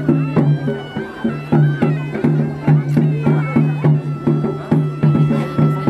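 Traditional music: a reed wind instrument plays a melody over a low drone, with drum strikes about twice a second.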